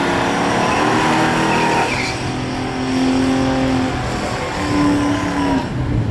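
Muscle car engines at full throttle accelerating down a drag strip. The engine pitch climbs through each gear and drops at the shifts, about two and four seconds in and again near the end, then the sound fades.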